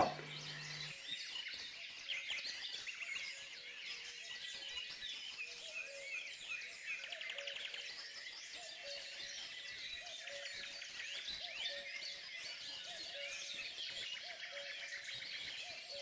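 Faint chorus of small songbirds: many overlapping quick chirps and short song phrases.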